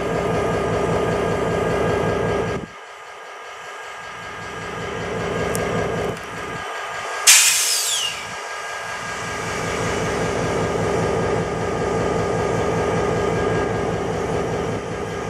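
Diesel-electric locomotive engine running steadily at a standstill with an even, pulsing drone. Its low rumble drops away abruptly about three seconds in and slowly builds back. About seven seconds in, a short, loud burst of air hisses from the air brakes during a brake test.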